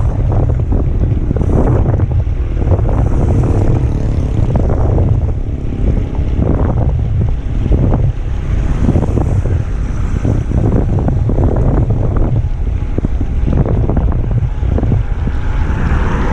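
Wind buffeting the microphone of a camera riding along on a moving mountain bike, a heavy steady rumble, with irregular short rattles and knocks from the bike and tyres over the road.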